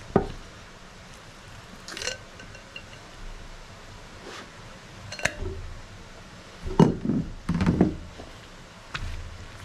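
Handling noises from a plastic netting tube and an elastic meat net as a cased pork neck is slid through them: scattered short knocks and clicks, with a louder cluster of knocks about two-thirds of the way in.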